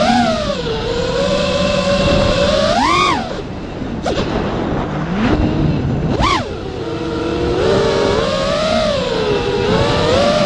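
RC car motor running under changing throttle, its pitch rising and falling, with two quick high surges about three and six seconds in.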